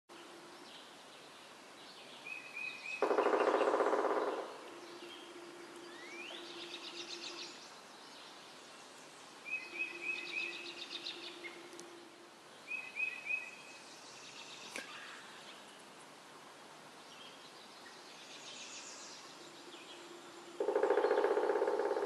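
Woodland songbirds singing: short high trills and buzzy phrases repeated every few seconds. Two louder, lower-pitched calls of about a second and a half break in, about three seconds in and again near the end, and there is one sharp click midway.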